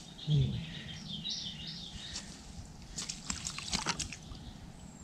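Water sloshing and dripping as hands rummage in a keepnet standing in the river to lift out fish, with a cluster of splashy handling sounds about three to four seconds in. A man's voice makes a brief sound at the very start, and a bird sings in the background.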